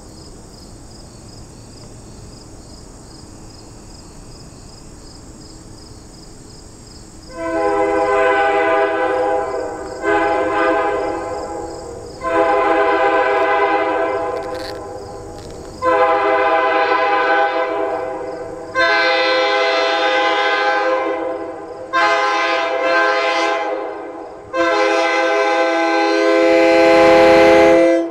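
Nathan Airchime K3L three-chime train horn, Canadian-tuned, mounted on a car and sounded in seven blasts of a steady multi-note chord after about seven seconds of quiet. The blasts grow louder as the car approaches, and the last one is held longest.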